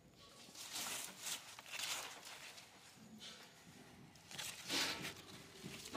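Ridge gourd vine leaves rustling as they are brushed and pushed aside, in a few short spells of soft rustling with quiet between.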